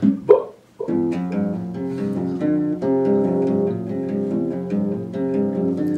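Nylon-string classical guitar strummed in a steady rhythm of chords, starting about a second in after a short loud voice sound and a brief pause.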